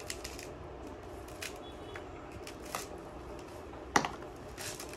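Dry coconut husk being torn off by hand: scattered short scratchy tearing and crackling sounds, with a sharper crack about four seconds in.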